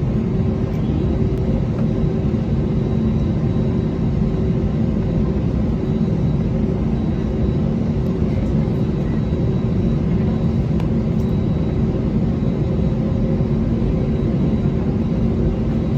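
Airbus A320's IAE V2500 turbofan engines running steadily, heard inside the passenger cabin: an even rumble with a few steady hums, holding level with no rise in pitch.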